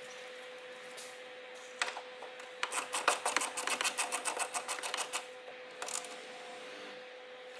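Ratchet socket wrench clicking as a nut is turned in the engine bay: a rapid run of clicks for about two and a half seconds, starting near three seconds in, with a few more clicks afterwards.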